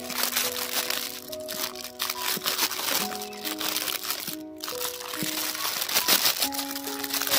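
Clear plastic bag crinkling and rustling as a small toy tractor is handled inside it, over background music of held notes.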